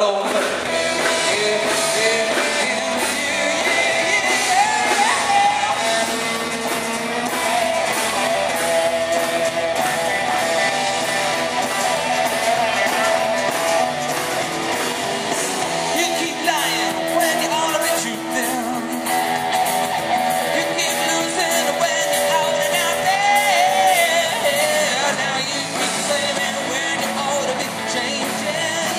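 Live rock band playing, with electric guitars, drums and a male voice singing, in a large hall.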